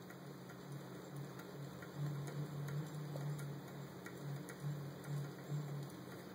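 Light, even ticking about three times a second over a low mechanical hum that swells in pulses through the middle, from a spinning trigger-wheel test rig driving an Arduino ECU prototype.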